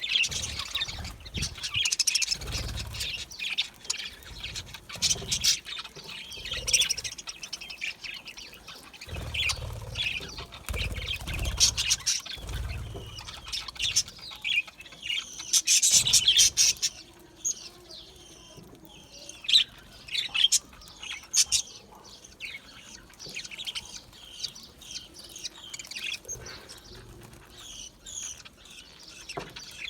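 A flock of budgerigars chirping and chattering in rapid, overlapping warbles. The chatter is loudest in a burst about halfway through and thins out over the second half.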